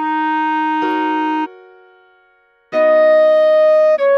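Clarinet playing a slow melody. One held note fades away about a second and a half in, and after a short gap a higher note comes in near three seconds, stepping down a tone near the end.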